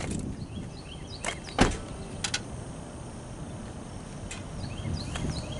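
An SUV's rear side door being shut: a light click, then one solid thump about one and a half seconds in, and another latch click shortly after. Faint high chirps are heard in the background.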